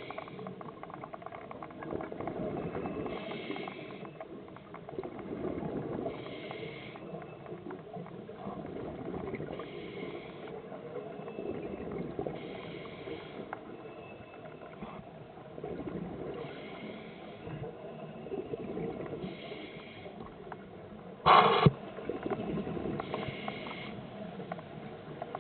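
Underwater scuba diving sound: the diver's regulator breathing, a short hiss of air about every three seconds, over a steady rumble of bubbles and water against the camera housing. One louder short burst comes a little before the end.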